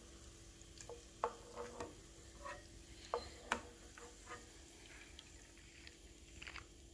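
Faint scattered clicks and taps of a metal slotted spoon in a pan of hot coconut oil as fried onion slices are lifted out and drained, over a faint sizzle of the oil.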